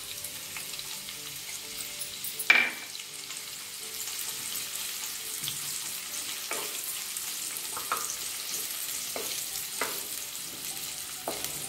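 Sliced onions sizzling in hot oil in a nonstick kadhai while a wooden spatula stirs them, knocking on the pan now and then. A sharp clack about two and a half seconds in is the loudest sound. The onions are being lightly sautéed, not browned.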